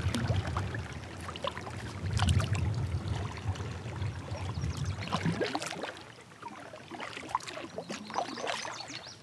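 Water splashing and trickling beside a plastic fishing kayak, with scattered light knocks and clicks against the hull. The sounds die down after about five seconds.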